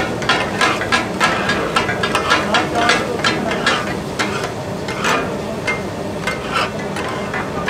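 Metal spatulas clattering in a quick rhythm on a large flat iron griddle, about three strikes a second, as goat offal is chopped and minced for taka-tak, over a steady sizzle from the hot griddle.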